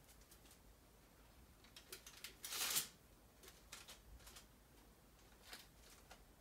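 Faint taps and rustles of fingertips pressing small mounds of cauliflower-Parmesan mixture flat on a parchment-lined metal baking sheet, with one louder scraping rustle about two and a half seconds in.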